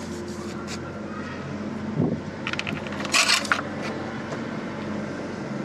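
A thin metal engine-oil dipstick clicks and scrapes as it is slid down its guide tube, about halfway through, to check the oil level. A dull knock comes just before.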